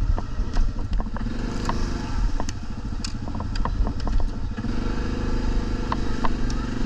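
Quad (ATV) engine running, with scattered sharp clicks and knocks over it. A steadier engine tone grows stronger about four and a half seconds in.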